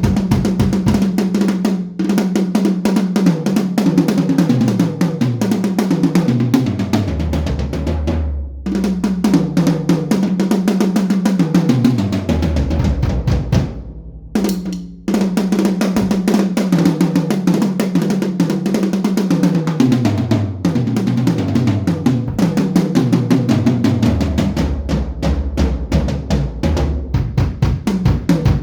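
Sonor HiLite maple-shell drum kit played in fast fills that step down the toms from high to low again and again, with kick and snare. The playing breaks off briefly about halfway, after a low tom rings out.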